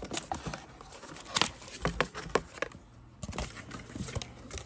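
Cardboard boxes and packaging being handled and set down on a carpet: irregular light knocks, taps and rustles, with a couple of sharper knocks in the middle.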